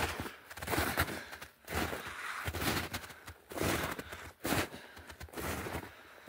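Footsteps in snow at a steady walking pace, roughly one step a second.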